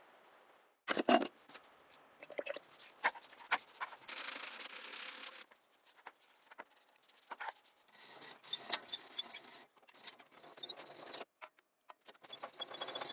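Hand work on an object being restored: a string of sharp clicks and knocks with rubbing and scraping between them, and a steady hiss for about a second and a half around four seconds in.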